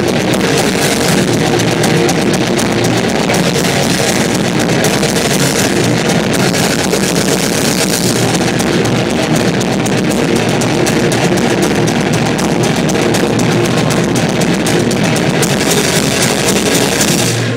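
Heavy metal band playing live and loud in a concert hall, with distorted electric guitars and a pounding drum kit. The song stops abruptly at the very end.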